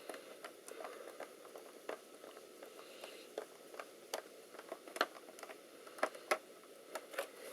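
Scattered light clicks and taps at an uneven pace, a few sharper than the rest about five to seven seconds in: hands handling and fitting a laptop's parts during reassembly.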